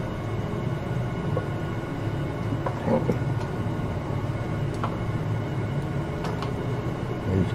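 A steady low mechanical hum, with a few light clicks of edamame beans being squeezed from their pods and dropped into a glass bowl.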